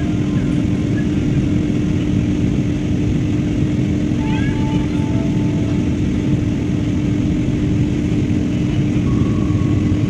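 Steady cabin noise inside an Airbus A320-family jet airliner in flight: an even roar of engines and airflow with a constant low hum.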